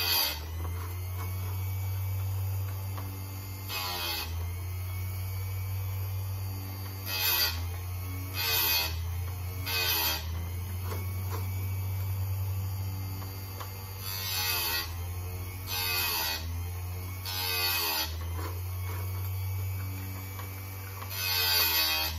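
Chicago Electric electric chain sharpener's motor running with a steady hum. The grinding wheel is lowered onto the chainsaw chain's cutters again and again, giving a string of short, loud grinding bursts, each under a second and spaced one to four seconds apart, as each tooth is sharpened in turn.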